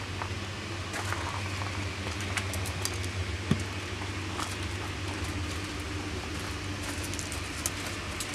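A steady low hum, with scattered rustles and light clicks as bedding is carried and handled, and one sharp knock about three and a half seconds in.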